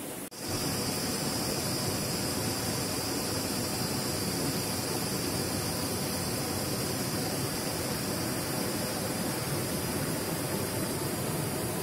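Mountain stream rushing over boulders in small cascades, a steady rushing noise that comes in after a brief drop-out just after the start. A steady high-pitched whine sits over it and stops shortly before the end.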